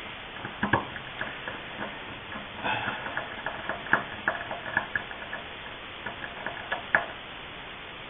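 Small metal clicks and ticks as a screwdriver drives the handle screw back into a Delta faucet, with a quick run of ticks around the middle and single sharper clicks near the start and near the end.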